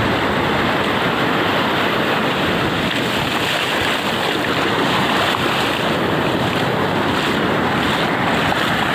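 Sea surf breaking on a sandy beach: a steady, loud wash of waves, with wind rumbling on the microphone.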